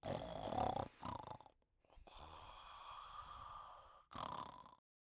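A person snoring: four snoring breaths of different lengths, the third a longer, quieter one of about two seconds with a whistling tone in it.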